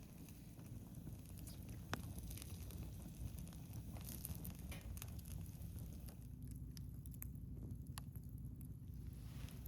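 Wood campfire crackling, with scattered sharp pops and clicks, the loudest about two seconds in, over a steady low rumble.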